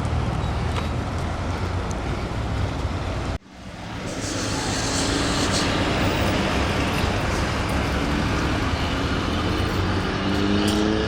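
Steady road traffic noise. It cuts out abruptly about three and a half seconds in and swells back, and a vehicle engine rises in pitch as it speeds up in the second half.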